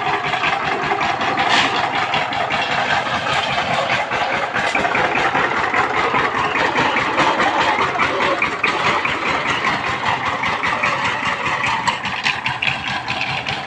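Single-cylinder diesel engine of a walk-behind power tiller running steadily with a rapid, even chug while towing a loaded trolley.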